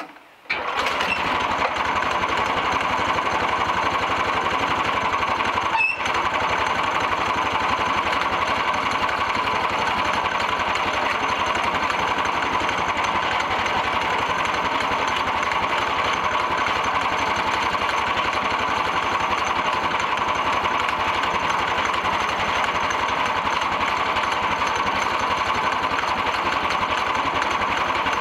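Small gasoline engine of a portable band sawmill running at a steady speed. It comes in abruptly about half a second in and holds steady, with one brief dropout about six seconds in.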